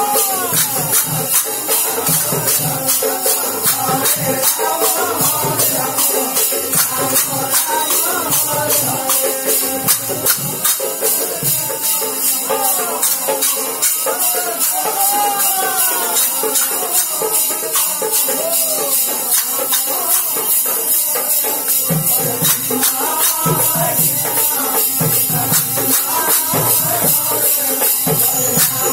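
Devotional naam sankirtan music: hand cymbals clashing in a fast, steady beat, with group singing and a drum.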